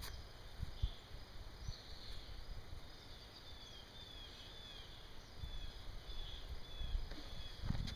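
A bird calling in a run of short chirps that each slide downward, over a faint low rumble.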